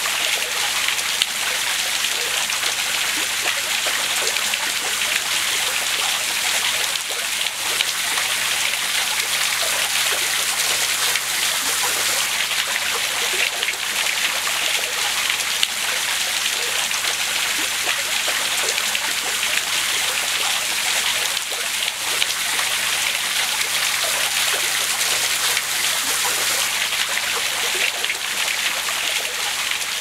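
Small waterfall pouring into a pool: a steady rush of splashing water.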